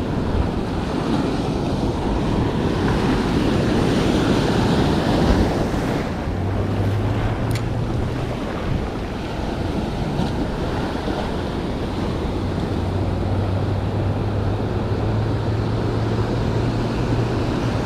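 Surf breaking and washing up on a sand beach, with wind buffeting the microphone.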